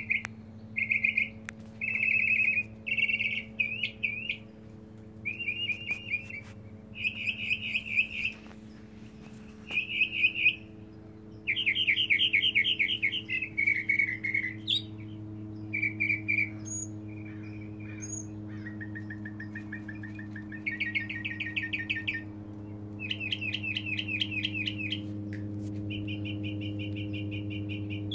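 Male northern mockingbird singing: a long run of short phrases, each a quick string of repeated notes, switching to a new phrase every second or two. A steady low hum sits underneath.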